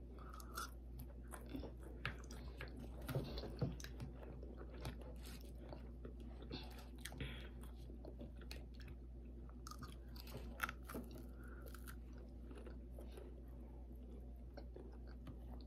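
Close-up chewing and biting on crispy fried pork chops, with irregular small crunches, a few louder than the rest. A low steady hum runs underneath.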